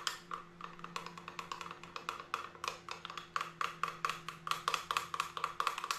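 A stirring utensil clinking against the inside of a glass measuring cup while plastisol is mixed by hand, a quick, even ticking about four times a second. A faint steady hum runs underneath.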